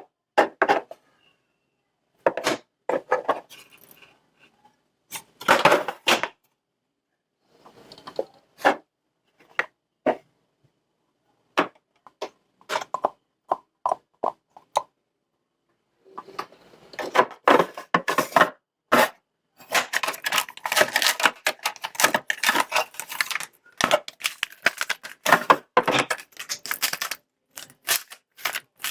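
Diamond-painting supplies handled up close: irregular clicks, rattles and crinkles of small plastic pieces, with a short run of evenly spaced ticks about halfway and dense rapid clicking through the second half.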